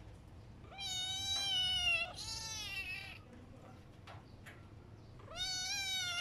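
Kitten meowing: a long, high meow about a second in that runs straight into a second, falling one, then another long meow starting near the end.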